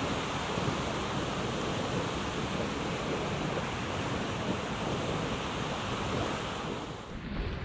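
Steady rushing of strong wind buffeting the microphone over choppy open water, with waves washing against the shore. The noise briefly drops away about seven seconds in.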